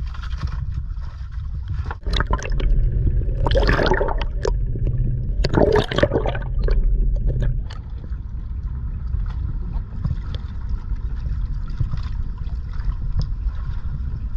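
Seawater gurgling and sloshing over a camera dipped under the surface, with two louder splashing surges about four and six seconds in. After about eight seconds it settles to a steadier wash of wind and waves.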